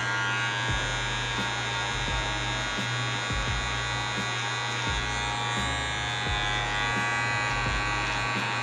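Electric hair trimmer buzzing steadily as its blade cuts a line into short hair at the nape.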